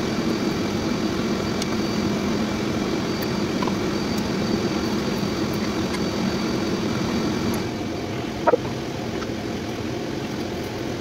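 A steady machine drone, like a motor running, with a faint high whine. It eases slightly about seven and a half seconds in, and a short rising squeak comes about a second later.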